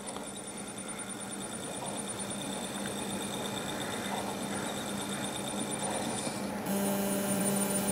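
Spindle motor of a head-crashed WD Green WD10EACS hard drive spinning up, a steady hum and whine growing slowly louder. Near the end a hiss and a stronger hum set in. The drive's firmware keeps starting the motor and slowing it back down instead of running at full speed, because of the head crash.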